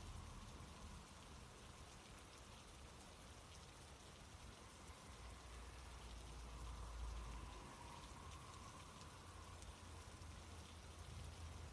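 Near silence: a faint steady hiss over a low rumble.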